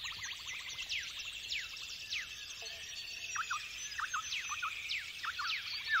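A dense chorus of many birds: quick chirps sliding steeply downward in pitch, overlapping throughout, with a fast rattling trill near the start. It comes from the background soundtrack, a nature-sound ambient piece.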